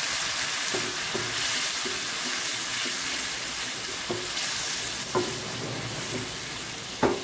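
Shark dry-fish masala sizzling in a hot kadai with a little water just added, with a spoon stirring through it. A few knocks of the spoon against the pan come in the second half, the sharpest near the end.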